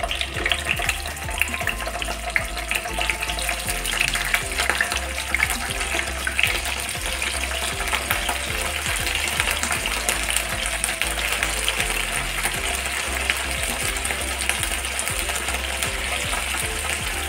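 Paneer cubes frying in hot mustard oil in a nonstick pan: a steady sizzle with fine, irregular crackling of spattering oil.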